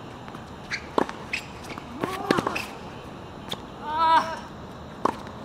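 Tennis rally on a hard court: sharp pops of racquets striking the ball and the ball bouncing, a few single hits spread over the seconds, with fainter taps between. Two short vocal sounds from the players come in the middle, as the point ends.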